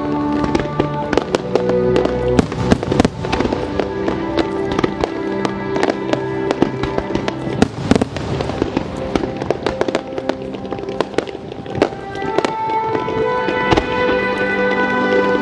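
Aerial fireworks bursting and crackling in rapid succession over music. The bangs come thickest in the first ten seconds and thin out near the end as the music swells.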